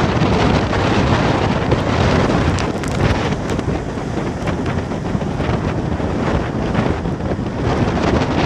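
Strong storm wind buffeting the microphone in a continuous loud rush, with the noise of a rough sea mixed in.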